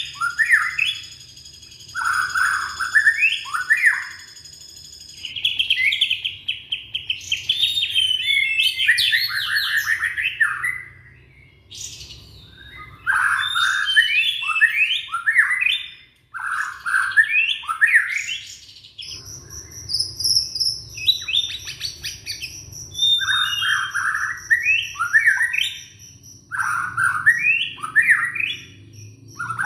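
Young white-rumped shama (murai batu) singing: bursts of quick rising and falling whistled phrases, repeated with short pauses between them. A thin steady high tone sits underneath for the first few seconds and again through the second half.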